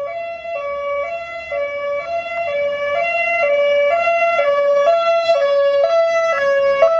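British police car's two-tone siren, alternating between two notes about every half second and growing louder as the car approaches.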